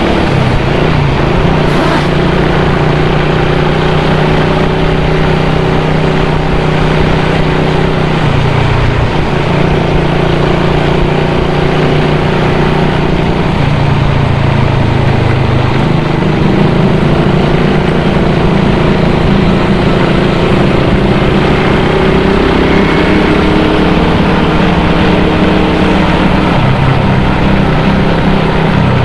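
Motorcycle engine running steadily under heavy wind noise on the rider's microphone while riding in traffic. The engine note shifts to a new pitch a few times.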